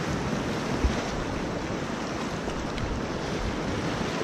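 Fast whitewater river rushing steadily around a kayak in choppy waves, with wind buffeting the microphone. A single low thump about a second in.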